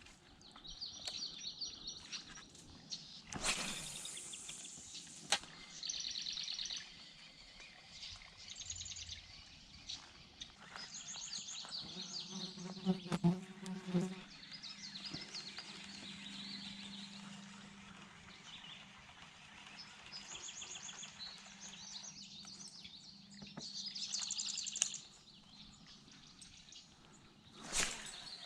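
Repeated high, trilling animal calls, each about a second long, with a few sharp knocks and a low hum in the middle.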